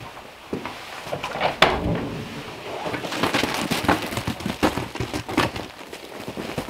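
A sharp click about a second and a half in, then footsteps crunching through icy snow at a walking pace.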